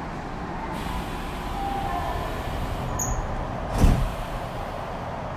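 Inside a Tokyu 5050 series commuter train standing at a station, with a steady background of air-conditioning and traction equipment. About four seconds in, the sliding doors close with a single loud thump, ready for departure.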